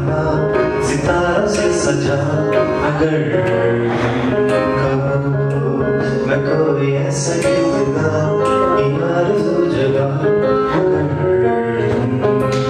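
Live band music: a man sings over keyboard accompaniment, the music continuing steadily without a break.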